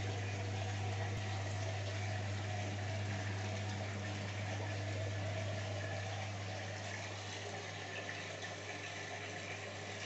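Water splashing and trickling steadily from a pipe outlet into a gravel-bottomed filter tank, over a steady low hum.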